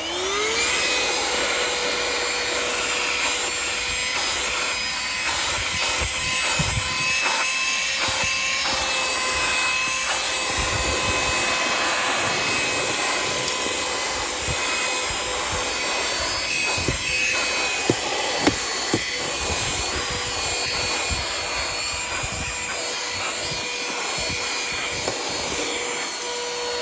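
XREXS cordless handheld vacuum cleaner spinning up and then running at full speed with a steady whine over a rushing of air. Small clicks and rattles of dirt and grit being sucked up the nozzle come through at intervals, sharpest about eighteen seconds in.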